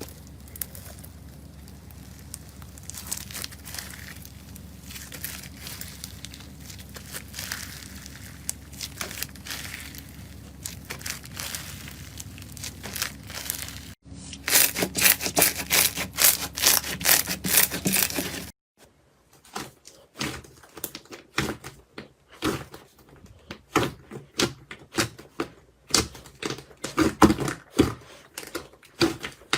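Slime being squeezed, stretched and poked by hand, crackling, popping and clicking. There is light crackling over a steady low hum at first, then a loud dense run of crackles a little before the middle, then separate sharp clicks and pops.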